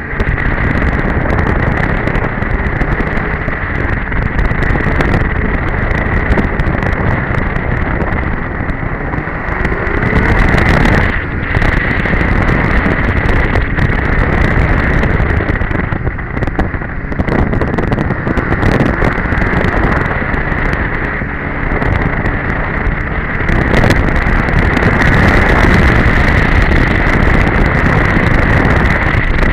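2002 Polaris Edge two-stroke snowmobile running steadily at trail speed, mixed with wind rushing over the action camera's microphone, with a brief easing about eleven seconds in.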